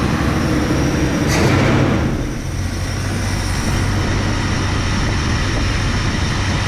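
1966 Plymouth Belvedere engine running after a tune-up, swelling briefly louder about a second and a half in, then settling to a steady idle.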